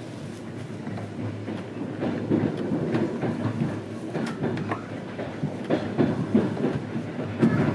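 A moving passenger train heard from inside the carriage: wheels clicking and clattering irregularly over rail joints and points, over a steady low rumble.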